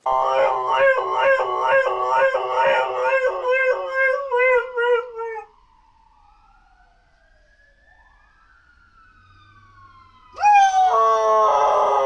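Dog howling: a long, wavering howl that drops in pitch and fades about five seconds in, then faint falling and rising tones, and a second loud howl starting sharply about ten seconds in.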